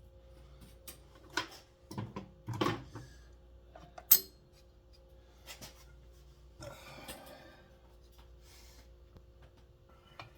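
Small parts and tools being handled on a workbench: scattered clinks and knocks, a sharp click about four seconds in and a short rustle near seven seconds, over a faint steady hum.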